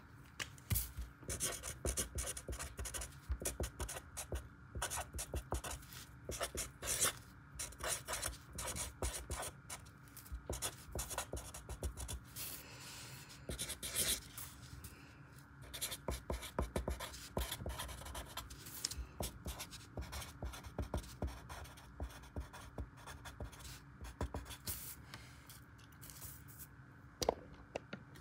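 Marker writing on a sheet of loose-leaf notebook paper: quick scratchy strokes coming in bursts, with short pauses between them.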